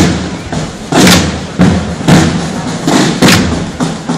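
Drums beating a slow processional march: a heavy stroke about once a second, with lighter strokes between and a short ring after each.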